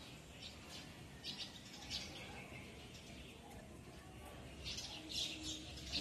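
Small birds chirping in short high bursts, faint at first and louder near the end.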